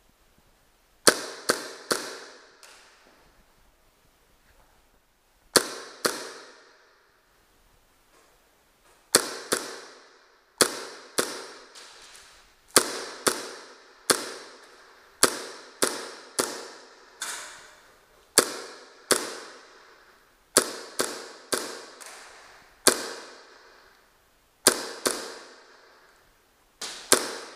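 Gas blowback airsoft guns firing semi-auto, singly and in quick pairs or threes every second or two. Each sharp crack is followed by an echoing tail of about a second.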